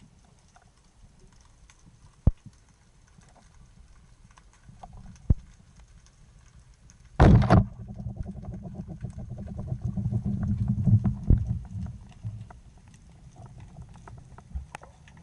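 Speargun fired underwater: a sudden loud thump a little past the middle, followed by several seconds of muffled low rumbling with faint ticking as the shaft and line run out. Two single sharp clicks sound earlier.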